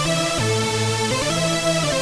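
Acustica Audio Nox software synthesizer playing a preset: sustained electronic chords over a deep bass, with the notes changing a few times and a short falling pitch glide about half a second in.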